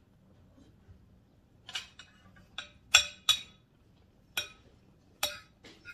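Metal fork and spoon clinking against a dinner plate: near quiet at first, then about eight sharp, separate clinks from a couple of seconds in.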